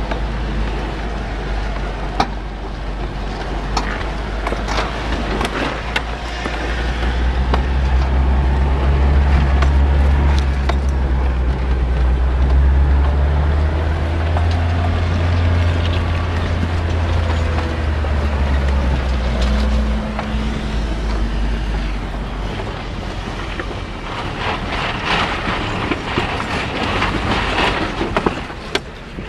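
Off-road truck's engine running under load, heard from inside the cab: a deep drone that grows louder through the middle, with scattered knocks and rattles from the body and the rocky trail, and a stretch of heavier rattling near the end.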